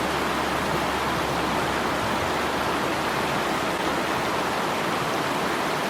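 Steady rush of loud flowing water, an even hiss with no change.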